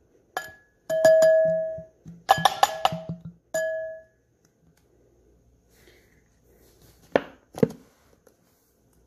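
A spoon clinking against a bowl several times, each strike ringing on at the same pitch, with a quick run of clinks in the middle, as a scrub mixture is being made. Two duller knocks come near the end.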